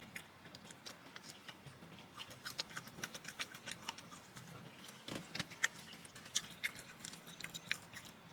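Faint, irregular clicks and crackles of someone eating a KFC chicken wrap close to the microphone.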